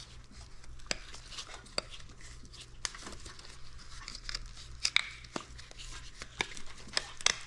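Hands working a motorcycle wiring harness and its plastic and rubber covers: rustling and crinkling with a string of sharp clicks and taps, over a low steady hum.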